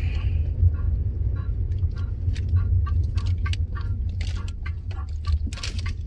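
Cabin noise of a Skoda car driving on a rural road: a steady low engine and road rumble. Over it comes a quick run of short, pitched blips about three a second.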